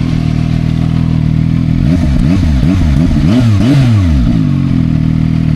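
Zontes 703T's three-cylinder engine idling, then revved in about four quick throttle blips about two seconds in, dropping back to a steady idle.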